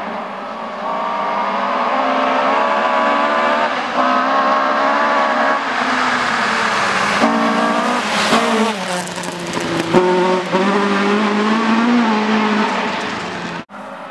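Ford Escort Mk2 rally car at full throttle on gravel, its engine pitch climbing in steps through the gears as it approaches. It passes close about eight seconds in with a drop in pitch and a rush of noise, then pulls away with the engine rising again.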